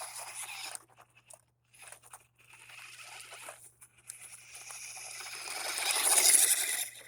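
Small RC car driving over rough ground: a rustling, crunching noise that comes and goes, grows louder to a peak about six seconds in, then drops away sharply.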